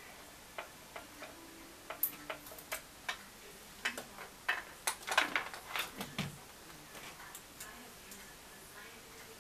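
Irregular small clicks and taps of plastic LED mirror lights and their wiring being handled and fitted around a vanity mirror, coming in quick clusters in the middle and thinning out near the end.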